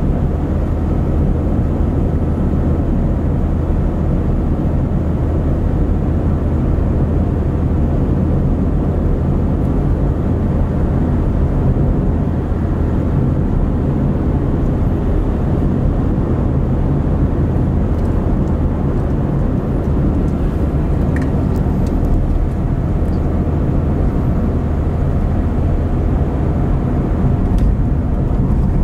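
A car driving at steady speed on a motorway: a continuous, even low rumble of engine and road noise with no change in pace.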